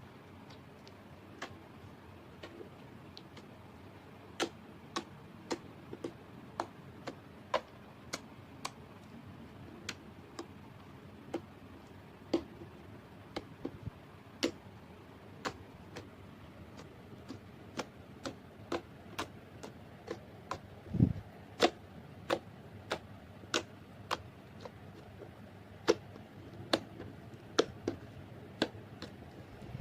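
Slime being squeezed and pressed, giving sharp, irregular clicks and pops, roughly one or two a second, with one dull thump about two-thirds of the way through.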